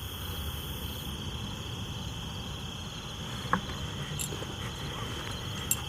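Crickets chirping in a steady, high, continuous drone, with a sharp knock about three and a half seconds in and a lighter click near the end.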